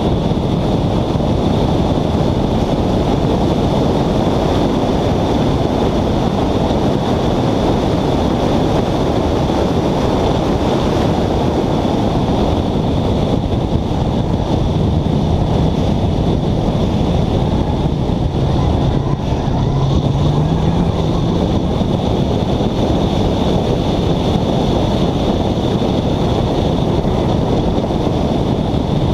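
Wind rushing over a bonnet-mounted camera's microphone on a car at speed, with the engine running under it. The engine's pitch rises briefly about twenty seconds in.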